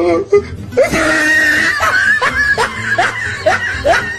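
Laughter over background music: a string of short rising cries, about two or three a second, over a busy musical bed.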